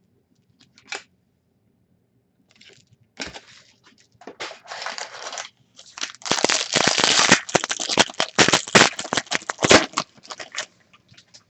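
Plastic trading-card pack wrapper being torn open and crinkled. The crinkling starts a few seconds in, is loudest in the second half, and stops shortly before the end.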